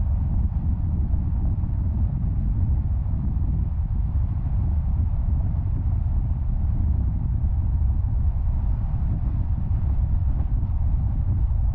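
A car driving along a paved road: a steady low rumble of road noise.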